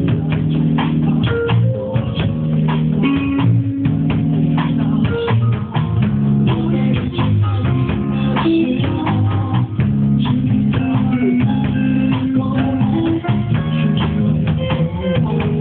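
A rock band playing live in a small rehearsal room: electric guitars holding heavy sustained chords over a drum kit keeping a steady beat.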